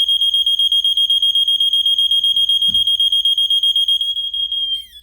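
System Sensor PS241575ADA fire alarm horn sounding a loud, high-pitched tone that pulses several times a second. Near the end it wavers, stutters and cuts out.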